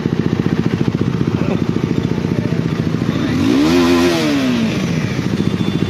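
Honda CBR250R single-cylinder motorcycle engine idling with an even pulse, with one throttle blip about three and a half seconds in that rises and falls in pitch before settling back to idle.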